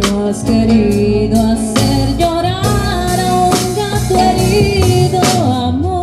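Live band music: a woman sings a melody into a microphone over acoustic guitar, bass and hand-percussion strikes.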